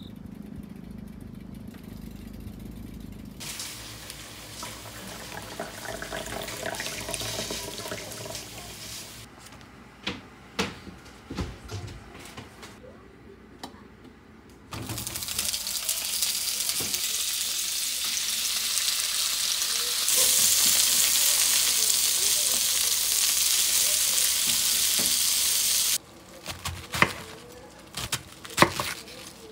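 Food sizzling: a loud, even hiss that starts suddenly about halfway through, grows louder, then cuts off, with scattered sharp clicks before and after it.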